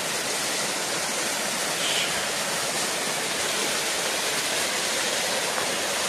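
Small waterfall cascading over mossy rock into a shallow rocky pool: a steady, even rush of falling and splashing water.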